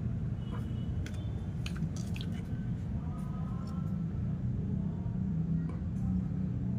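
Hands handling a polymer airsoft pistol and its plastic tag and packaging: a scatter of small clicks and crinkles in the first couple of seconds, then quieter handling, over a steady low background hum.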